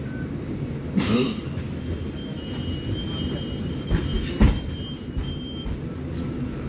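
Low steady rumble of a city bus idling at a stop, heard from inside. About a second in there is a short burst of hiss, from about two seconds a thin high beep holds for several seconds, and around four seconds come two heavy knocks, the second the loudest.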